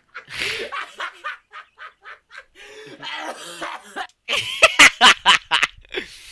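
A man laughing, breathy at first, then in a run of sharp, loud bursts about two-thirds of the way through.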